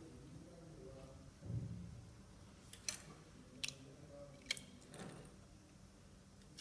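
A soft thump, then three sharp clicks less than a second apart, over faint low background noise.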